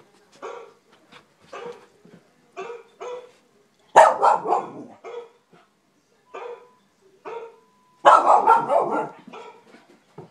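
Wheaten terrier barking repeatedly at a dog on the television, with two louder bouts of rapid barking about four and eight seconds in.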